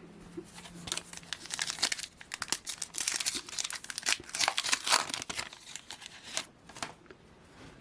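A foil trading-card pack wrapper being torn open and crinkled in the hands, a dense run of crackles over about six seconds.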